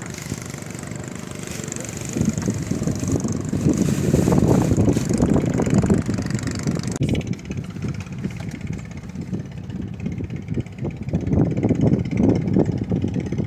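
Gusty wind buffeting the microphone: a low rumble that swells and eases. A higher hiss in the first half cuts off abruptly about seven seconds in.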